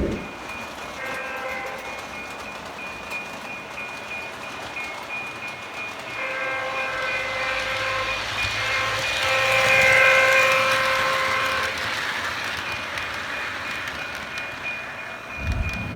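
Train horn sounding several chord blasts over the running noise of a passing train, swelling to its loudest about ten seconds in and then fading; this is the locomotive sound on a model railroad.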